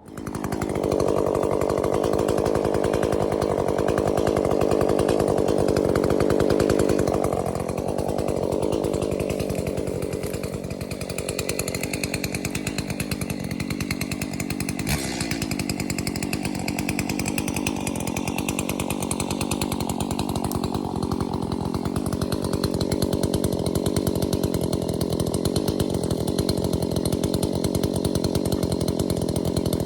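Two-stroke chainsaw running hard while cutting up a fallen ash tree. It starts at once, with a heavier note for the first seven seconds or so that then eases to a steadier running sound, and there is a brief click about halfway through.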